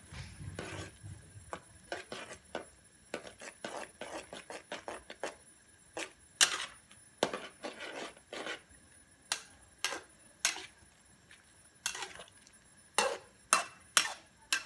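A ladle stirring instant noodle soup in a pan, knocking and scraping against the pan in short irregular clicks, one to three a second, with one sharper knock about six seconds in.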